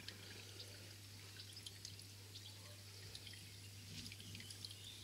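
Near silence: a low steady hum with faint scattered ticks.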